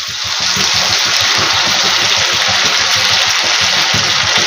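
Ginger-garlic paste frying in hot oil in a kadhai: a loud, steady sizzle with crackling that swells just as it begins.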